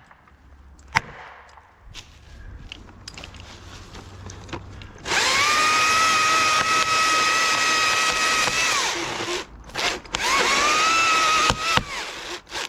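Stihl MS 661 chainsaw revving up to full throttle and cutting for about four seconds, dropping off, then a second shorter burst, sawing into the hinge wood to release a cedar held under rope tension. Before it, a few faint clicks.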